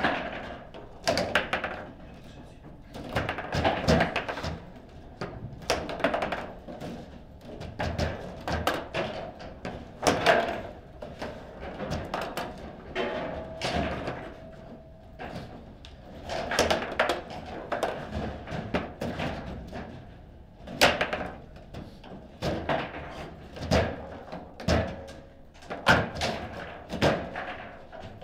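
Table football play: the ball being struck by the plastic figures and knocking off the table walls, with rods banging against their bumpers, an irregular run of sharp clacks and thuds.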